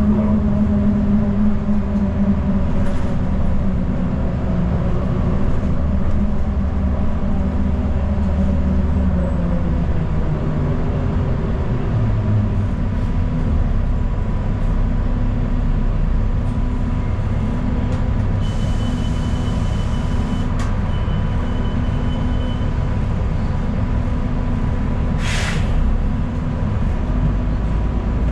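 Transit bus heard from inside: a steady engine and road rumble, the engine note dropping over the first ten seconds or so as the bus slows. A faint high tone sounds for a few seconds past the middle, and there is a short hiss near the end.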